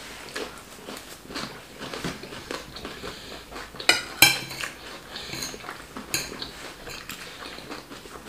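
Cutlery scraping and clinking against plates as rice is scooped up to eat, with two sharper clinks about four seconds in.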